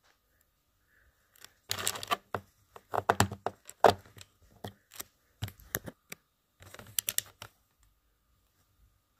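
Small plastic Lego pieces clicking and clattering as a minifigure is pressed together and its accessories are set down on a Lego baseplate. A dense run of clicks starts about a second and a half in, with scattered single clicks through the middle.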